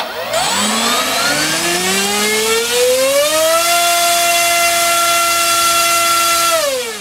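NTM PropDrive 3536 1800kv brushless outrunner motor spinning an APC 7x6 gas propeller on a thrust test: a loud whine with propeller rush that rises in pitch as it is throttled up over about three seconds, holds steady, then falls as it winds down near the end.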